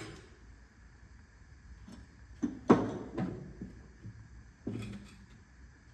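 A few short clunks and knocks from handling the mower deck's belt and pulleys, the loudest a little before the middle.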